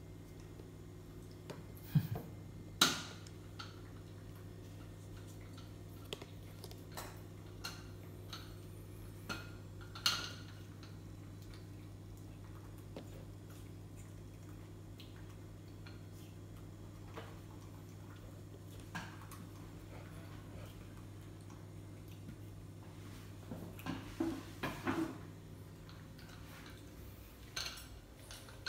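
Scattered sharp clinks and knocks of hard objects on a tiled floor: two loud ones a couple of seconds in, another about ten seconds in, and a cluster of smaller knocks near the end, over a steady low hum.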